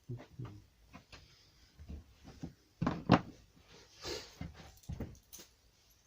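Scattered clicks and knocks of hard plastic parts and tools being handled as a grass strimmer is put back together, the loudest a sharp knock about three seconds in.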